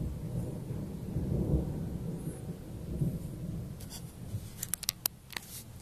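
Low rolling thunder from a passing thunderstorm, swelling about one and a half seconds in and dying away, followed near the end by a few sharp clicks.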